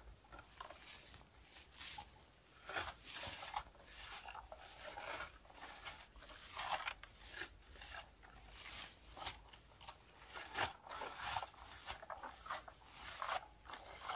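A hand-held plastic berry picker combing through blueberry bushes, its teeth scraping and rustling through the leaves and twigs in irregular strokes about once a second.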